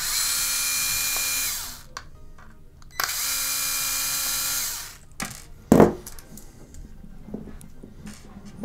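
WORX cordless electric screwdriver spinning out the Torx screws that hold a hard drive in its caddy: two runs of motor whine, each under two seconds, the pitch rising as the motor spins up and dropping as it stops. A sharp knock follows a little later and is the loudest sound.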